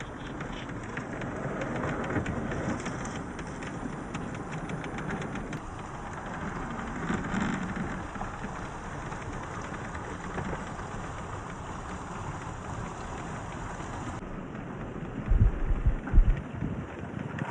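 RC crawler with a brushless motor driving over rough ground, giving a steady rough crunching and rustle of tyres and drivetrain. A few loud low thumps come about fifteen to sixteen seconds in, likely wind buffeting the microphone.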